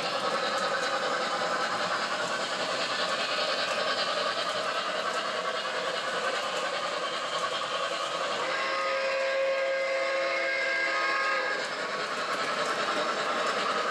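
O gauge model steam locomotive running along the track with steady running noise. About eight and a half seconds in, its onboard sound system blows one long chime whistle of several notes sounding together, lasting about three seconds.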